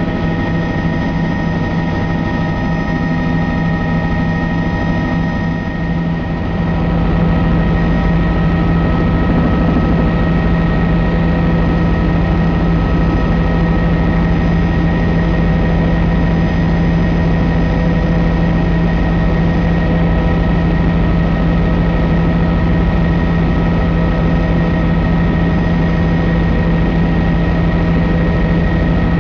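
Bell 206L LongRanger helicopter in cruise flight, its turboshaft engine and rotors making a steady whine-and-rumble with several steady tones, heard from inside the cabin. The low rumble grows a little louder about six seconds in.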